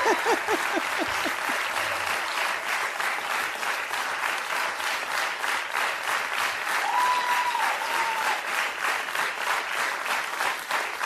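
Studio audience applauding steadily, the clapping falling into a regular pulse, with a short whistle about seven seconds in.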